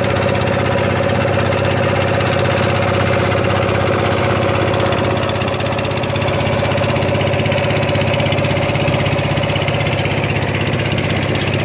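A fishing boat's engine running at a steady speed, an even, unchanging drone.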